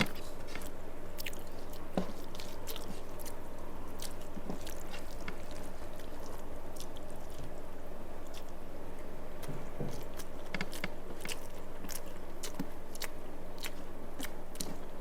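A person chewing a mouthful of rice and fish curry close to the microphone, with frequent small wet clicks and smacks at an uneven pace, over a steady low hum.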